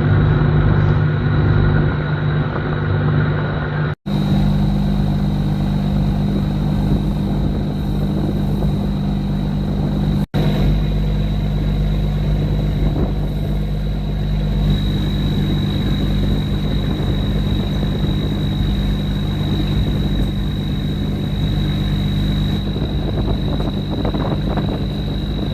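River boat's engine running steadily under way, with a steady high whine above its low drone. The sound cuts out for an instant twice.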